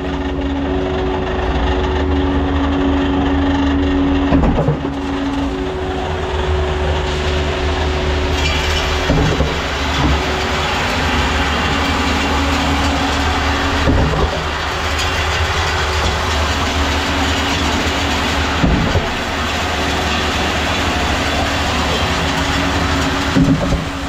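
Hopper of a 40-metre Alliance truck-mounted concrete pump churning as wet concrete pours in from the mixer chute and the agitator turns, over the steady drone of the engine and hydraulics, with a short knock about every four to five seconds.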